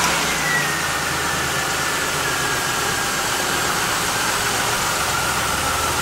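Car engine idling just after start-up, with a faint high whine that slowly falls in pitch. The engine has an intake vacuum leak that makes it stall intermittently.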